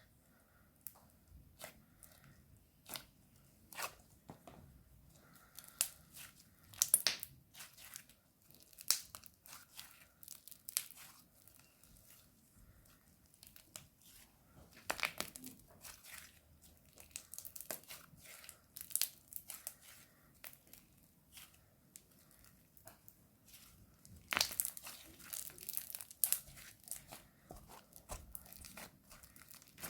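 Crunchy slime being pressed and squeezed by hand, giving irregular bursts of sharp crackling and crunching, densest in clusters about a quarter and a half of the way through and again near the end.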